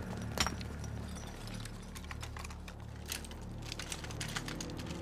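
A squad of soldiers walking in snow and handling their rifles: irregular crunching steps and clicks, over a low sustained music drone.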